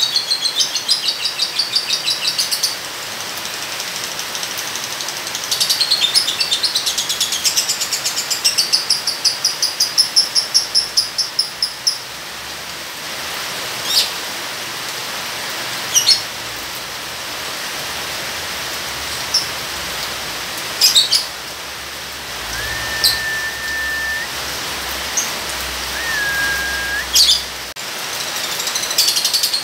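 Lovebird giving its long, rapid, high-pitched chattering trill ("ngekek") in bursts, over a steady hiss of rain. Through the middle stretch the trill stops and there are only single sharp chirps and two short level whistles, then the chatter starts again near the end.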